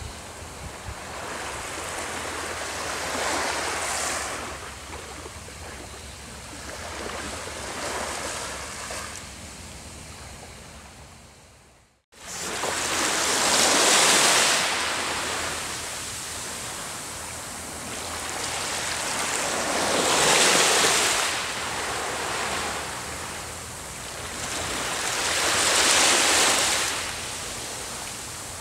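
Small waves washing up onto a sandy beach, each one a swell of rushing surf that rises and ebbs away. The sound fades out about twelve seconds in, then comes back with a wave about every six seconds.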